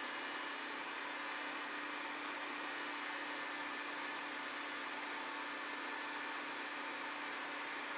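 Electric meat grinder running steadily, a constant motor hum with whirring noise, as it minces chicken through a fine grinding plate.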